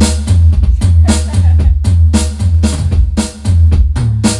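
Drum kit played loudly in a steady beat of about two to three hits a second, over a low bass line that steps up in pitch near the end.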